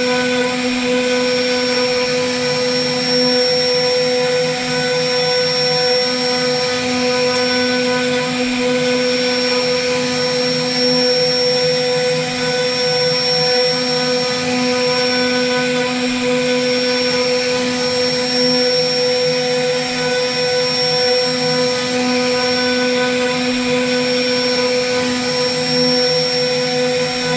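CNC router spindle running with a steady whine while its bit carves a relief pattern into a wooden panel.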